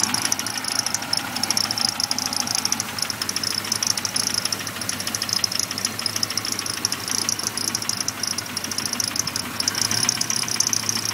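Supercharged 3.8-litre V6 of a 1998 Pontiac Grand Prix GTP running with a rapid, steady knocking. The owner suspects rod knock, or else a fault in the supercharger.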